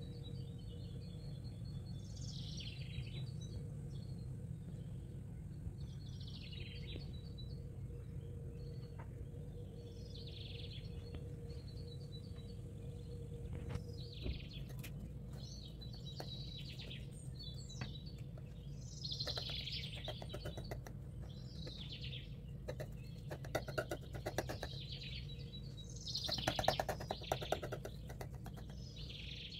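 Small birds chirping over and over, over a steady low hum. Short bursts of rapid clicking or rattling come about two-thirds in and again near the end.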